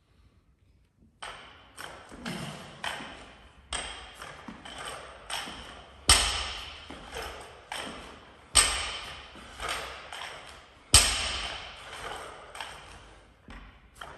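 Loaded barbell during power cleans: the metal bar and plates clink and ring as the bar is pulled and caught. There are three heavy thuds about two and a half seconds apart, as the bar comes back down to the floor between reps.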